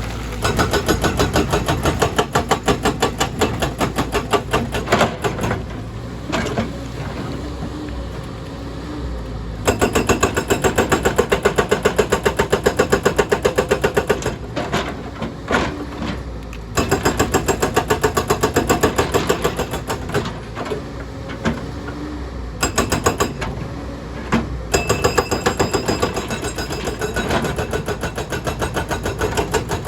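Excavator-mounted hydraulic breaker hammering rock in rapid, evenly spaced blows, in runs of several seconds with pauses between, over the steady running of the excavator's diesel engine.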